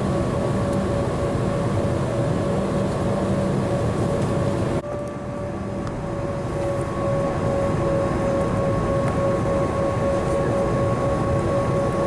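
Embraer E190's GE CF34-10E turbofan engines heard from inside the cabin while taxiing: a steady hum with a constant whine. About five seconds in the hiss drops suddenly, and the sound builds back over the next few seconds.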